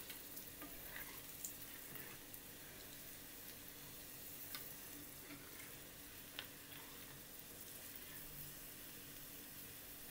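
Faint, steady sizzle of corn bhaji (corn fritters) deep-frying in hot oil, browned and crisp and ready to come out. A few light clicks come from the steel slotted spoon against the pan as the fritters are stirred and lifted.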